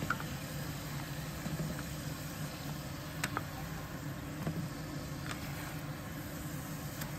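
A ladle stirring curry in a stainless steel pot, with a few light clicks of the ladle against the pot over a steady low mechanical hum.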